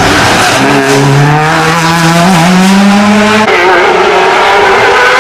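Race car engine accelerating hard, its pitch rising through a gear, with an upshift about three and a half seconds in before it pulls on again.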